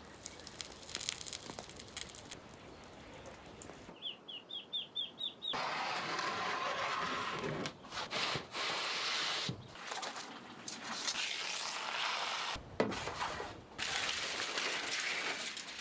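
Outdoor cooking sounds in several cuts: light clicks and crackles, then a bird's run of about six quick rising chirps about four seconds in, then a steady hiss of food sizzling that breaks off and resumes several times.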